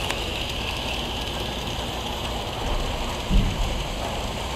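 Model train running on its layout track, a steady rushing noise of motor and wheels, with one short low bump a little over three seconds in.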